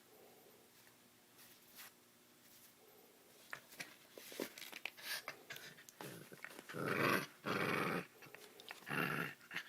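Puppy growling in play: small scuffing clicks first, then a growl of about a second and a shorter one near the end.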